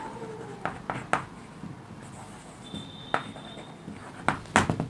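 Chalk writing on a chalkboard: scratchy strokes and sharp taps of the chalk against the board, the loudest taps coming near the end. A brief high thin tone sounds about three seconds in.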